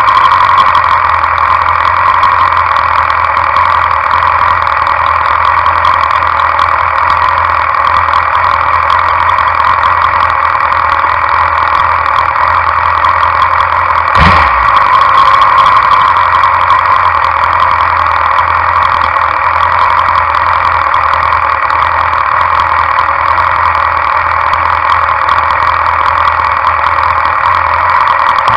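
Suzuki Inazuma 750's inline-four engine idling steadily at a standstill, its carburettors freshly adjusted. A single short knock comes about halfway through.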